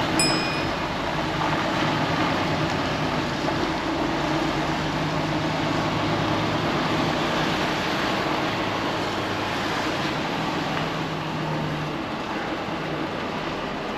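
Volvo FH 540's 13-litre six-cylinder diesel running steadily under light load, heard inside the cab as the truck rolls slowly over an uneven car park, with a brief high electronic beep just at the start.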